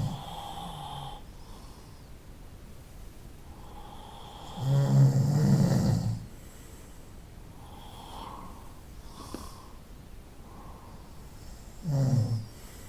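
A person snoring: a loud snore ends at the start, a long loud snore comes about five seconds in, and a shorter one comes near the end, with faint breathing between.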